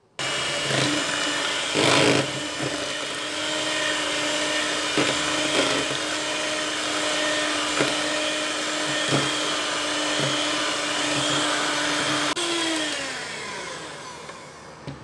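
Electric hand mixer (King, 6-speed) whisking eggs and sugar in a plastic bowl: a steady motor hum with occasional knocks of the beaters against the bowl. About 12 seconds in it is switched off and winds down, its pitch falling as it fades.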